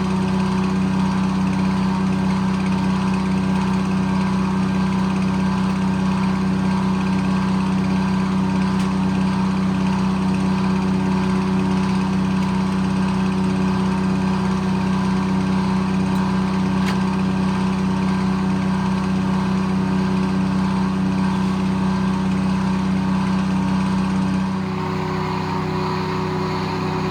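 Detroit Diesel engine powering a circle sawmill, running at a steady speed. A couple of seconds before the end its note drops slightly and it gets a little quieter.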